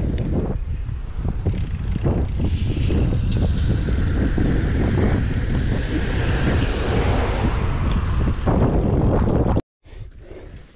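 Loud wind rumble buffeting the microphone of a moving bicycle, with a steady rushing hiss of air and tyres; it cuts off suddenly near the end.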